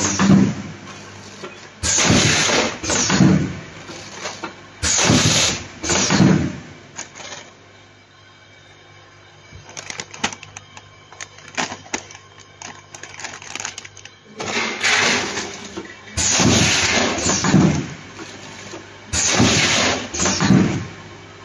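Automatic linear 4-head snack pouch packing machine running through its cycle: clattering, hissing bursts every second or so, often in pairs. The bursts stop for several seconds in the middle, leaving faint clicks, then resume.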